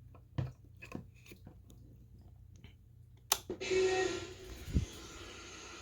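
Small handling clicks as the alarm clock's plug is fitted, then a sharp click about three seconds in and a burst of hiss from the clock as it powers up, settling into a steady lower hiss.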